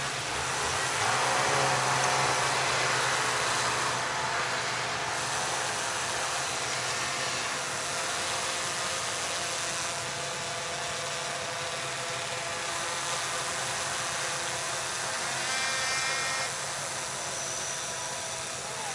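Quadcopter drone's motors and propellers whining steadily, briefly louder and higher-pitched about three-quarters of the way through.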